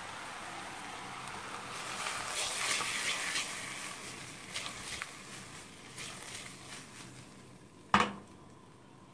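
Green beans and onions sizzling in olive oil in a stainless steel pot. The hiss swells loudly about two seconds in as the pot is shaken to toss the vegetables. Near the end comes one sharp metal clunk as the pot is set back down on the stove grate.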